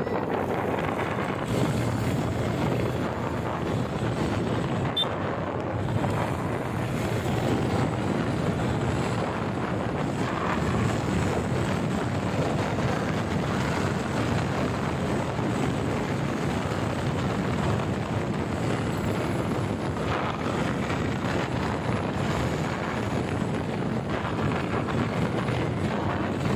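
Wind rushing over the microphone of a phone in a handlebar mount, mixed with a motorcycle's engine and tyre noise while riding at about 60 to 80 km/h. It is a steady rush that does not let up.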